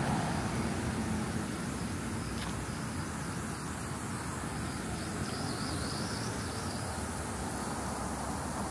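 Steady hum of distant road traffic, easing off slightly, with a faint high insect trill about five seconds in.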